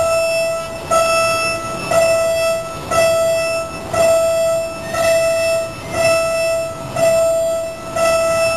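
Railway level-crossing warning bell ringing, one clear ringing strike about every second, each tone sustaining until the next: the signal that a train is approaching the crossing.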